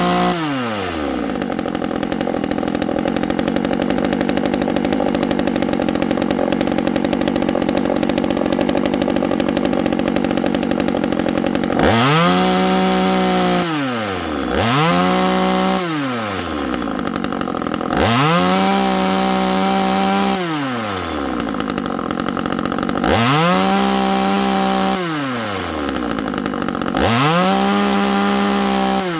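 Timberpro 25cc two-stroke top-handle chainsaw engine falling from high revs to idle and idling for about ten seconds. It is then revved up five times, each rev held a second or two before dropping back to idle.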